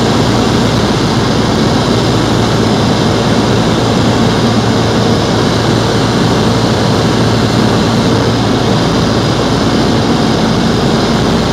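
Cessna 172SP Skyhawk's four-cylinder Lycoming engine and propeller running steadily, heard from inside the cabin as an even, unbroken drone.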